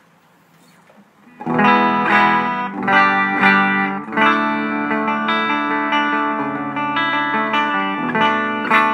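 Electric guitar played through the clean channel of a Blackstar HT-Metal valve pedal: quiet for about a second and a half, then notes and chords ringing out. The clean sound has no noise problem.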